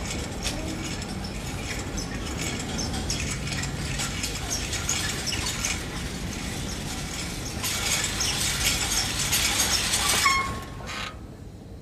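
Wheelchair rolling along a hard corridor floor, its wheels and frame rattling and clicking steadily. The rattle grows louder about eight seconds in and stops with a short high squeak near the end.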